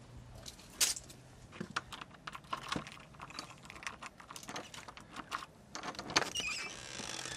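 A ring of keys jangling and clicking as a key is worked into a front-door deadbolt lock: a run of small metallic clicks, with sharp louder clicks about a second in and about six seconds in.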